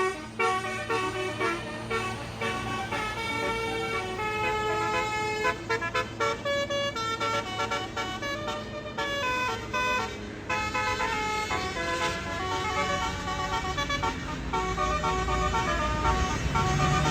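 Indonesian 'telolet' bus horn, a multi-trumpet air horn, playing a melody of short stepped notes, with a bus engine rumbling underneath that grows louder near the end.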